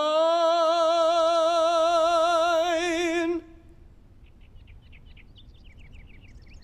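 A man's singing voice holds one long high note with a steady vibrato, cutting off about three and a half seconds in. Faint bird chirps follow.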